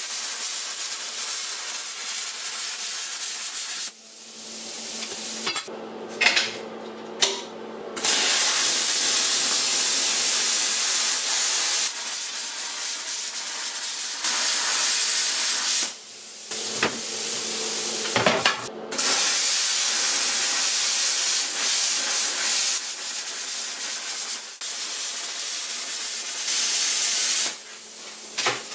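Hand-held plasma cutter cutting 1/4-inch steel plate: a steady loud hiss of the arc and air jet. It stops and starts again several times, with a few sharp clicks about six and seven seconds in.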